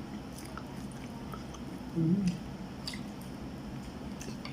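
Faint chewing and wet mouth sounds of someone eating a rice dish, with small scattered clicks and a short hum of voice about two seconds in.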